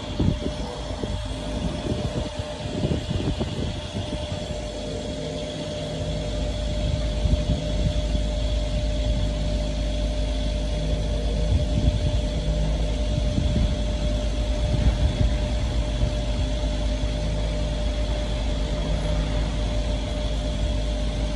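Fuel dispenser pumping petrol through the nozzle into a car's tank: a steady motor hum with a constant tone, the low rush growing heavier about six seconds in.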